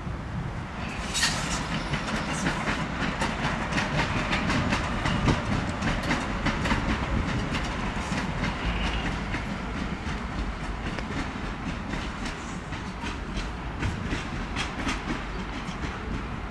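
Vienna U-Bahn train running past, its wheels clicking over rail joints in a quick, uneven series over a steady low rumble; the clicks start about a second in.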